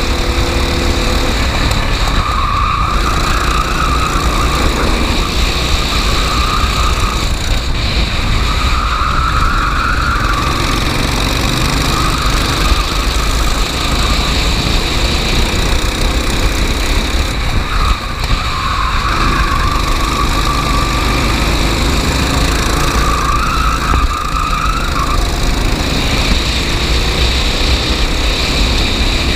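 Racing kart engine at full race pace, its pitch rising and falling again and again as it accelerates down straights and lifts for corners. Under it runs a loud, steady rush of noise.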